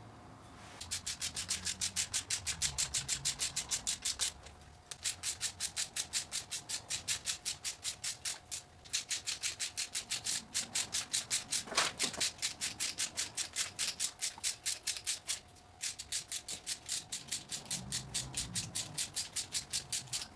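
Hand socket ratchet clicking rapidly, about nine clicks a second, as it runs bolts down into the intake manifold. The clicking comes in four runs of a few seconds each, with short breaks between them and one sharper knock about halfway through.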